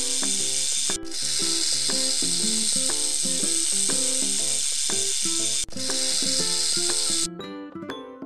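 Snake hissing: long, steady hisses that break off briefly about a second in and again near six seconds, stopping a little after seven seconds, over light background music.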